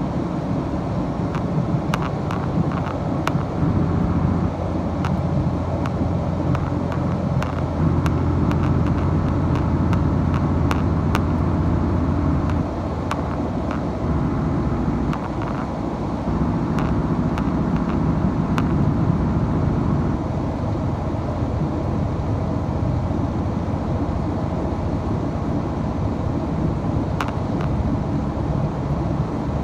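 Diesel engine drone of the Hokuto limited express train, heard from inside the passenger car while running, with a low steady hum and scattered sharp clicks. The drone eases slightly about twelve seconds in.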